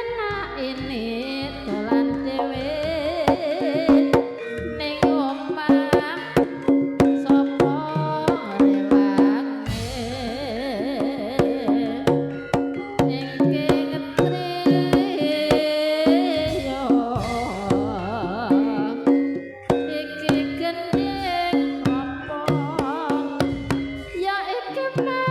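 Live campursari music: a drum beating a quick, lively rhythm under a melody and a wavering sung line.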